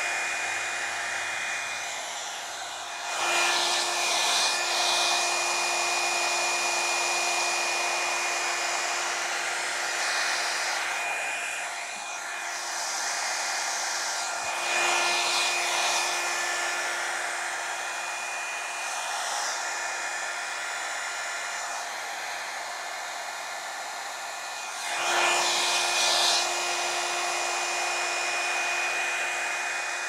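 Hot Tools Professional 24K Gold One Step hot-air brush dryer running on its low setting: a steady blowing whir with a fixed whine over it. It swells louder three times as the brush is drawn through the hair.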